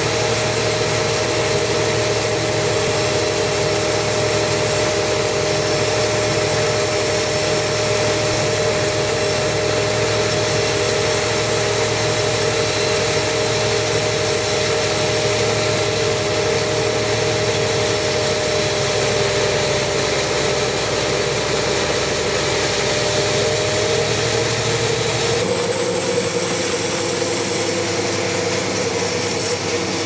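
Band sawmill running, its blade sawing lengthwise through a large trembesi (rain tree) log: a loud, steady whine over machine noise. The sound changes abruptly near the end.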